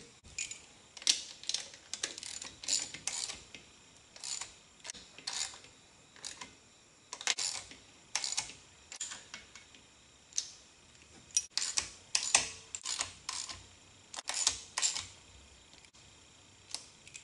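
Irregular small metal clicks and clinks from Holley carburetor throttle linkage and fittings being handled and fitted by hand.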